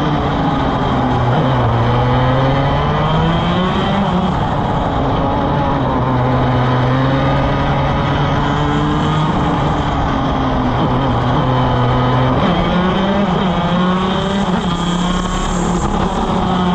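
175cc racing kart engine running hard, heard from onboard. Its pitch dips low through the corner, climbs again, and steps up sharply about twelve seconds in as the kart gathers speed down the straight.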